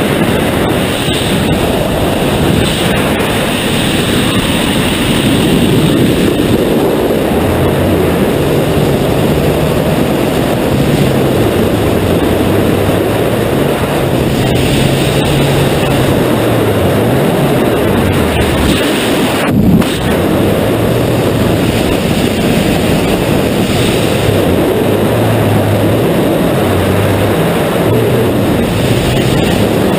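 Freefall wind rushing hard over a helmet-mounted camera's microphone during a skydive: a loud, steady rush with a brief drop-out about two-thirds of the way in.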